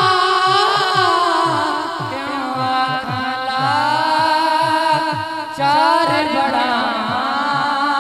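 A man singing a Punjabi devotional naat through a microphone, drawing out long wordless held notes that waver and bend in pitch, over a low repeating beat about twice a second.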